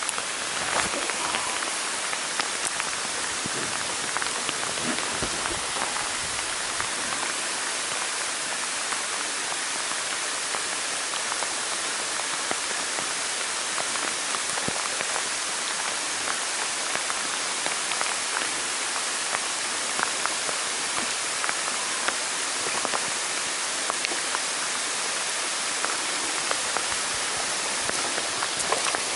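Rain falling steadily on a lake's surface: an even hiss with many separate drop taps throughout.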